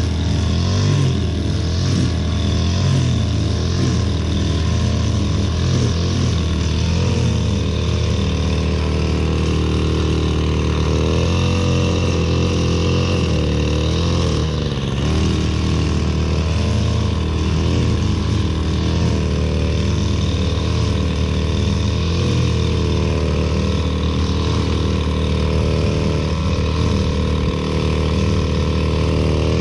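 String trimmer running steadily while it cuts through tall, overgrown grass, its motor note wavering up and down as the spinning line bites into the clumps.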